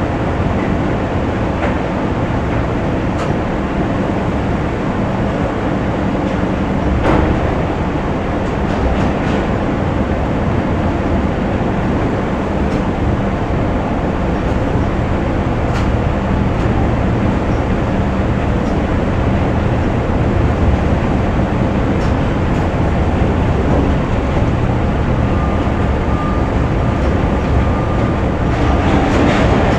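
Factory machinery running: a loud, steady rumble with a few faint clanks, and a faint steady high tone near the end.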